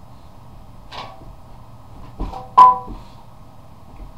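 Three sharp knocks with a short metallic ring: one about a second in, then two close together past halfway, the last the loudest. They are typical of a boxer puppy bumping into wrought-iron bar stools while playing.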